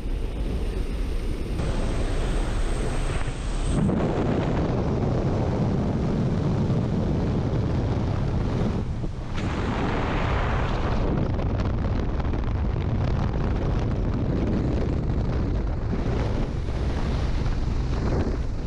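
Wind buffeting a helmet camera's microphone in skydiving freefall, a loud, steady rush. It is lighter during the first few seconds at the open aircraft door and swells into the full freefall rush about four seconds in, as the jumper leaves the plane.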